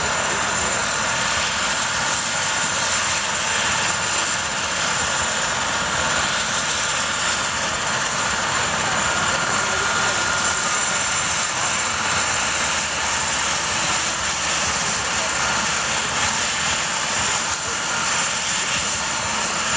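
Bell 412 helicopter running on the ground with its rotors turning: its twin turbine engines give a steady whine with a thin high tone over the rush of the rotors, holding an even level throughout.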